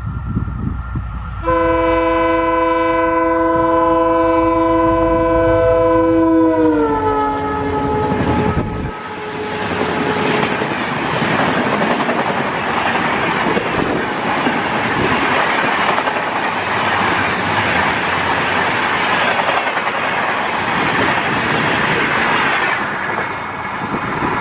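Diesel locomotive passing close by, sounding one long horn blast that drops in pitch as it goes past, then its coaches rolling by with a steady rushing rattle and clickety-clack of wheels over rail joints.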